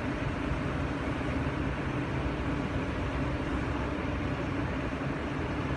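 Mobile crane's diesel engine running steadily under load while it holds a walkway section on its hook, a constant low drone.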